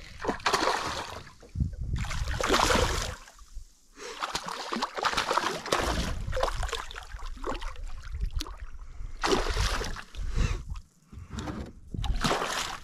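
A hooked northern pike thrashing and splashing at the surface beside a kayak as it is reeled in, in repeated irregular bursts of splashing.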